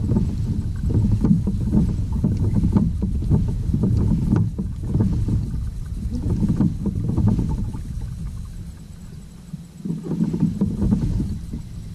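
Low rumbling wind and water noise around a kayak, rising and falling unevenly and easing off for a moment near the end, with a few faint ticks.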